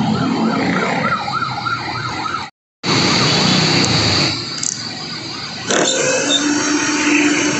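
Cordless drill/driver running, driving screws into corrugated metal roofing. A wavering, repeating tone sounds over the first two seconds or so. The sound drops out briefly, and after that the drill gives a steady high whine, then a lower steady tone near the end.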